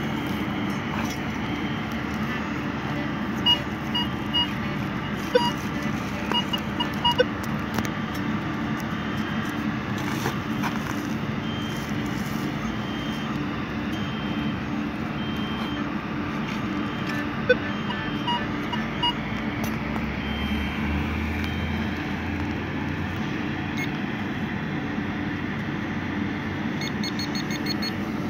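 Handheld metal-detecting pinpointer giving short, high electronic beeps in strings now and then, over a steady background hum and hiss. A few sharp knocks and clicks come from hands digging in the soil, mostly in the first several seconds.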